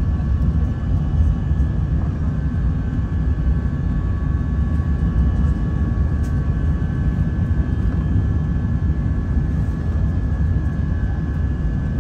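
Steady cabin noise of an Airbus A380 with Rolls-Royce Trent 970 engines: a deep, even rumble of engines and airflow with a few steady whining tones above it.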